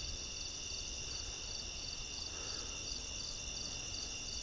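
Night chorus of crickets: a steady high trill with a pulsing chirp repeating about three times a second.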